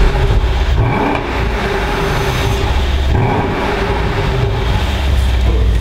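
Mercedes-AMG S63 Coupé's twin-turbo V8 running, a steady low exhaust rumble.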